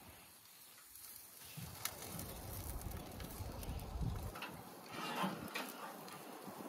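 A few faint, scattered clicks and light metallic knocks of a wire fish-grilling basket being handled on a grill grate, with a low rumble through the middle.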